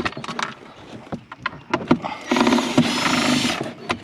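Cordless drill running in one burst of a little over a second, a bit past halfway, backing out a screw; before it, scattered clicks and knocks of handling.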